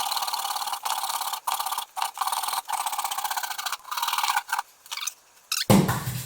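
Saw cutting through a green wood bowl blank in back-and-forth strokes, each stroke a rasping hiss with short breaks between, easing off near the end. A single loud knock comes just before the end.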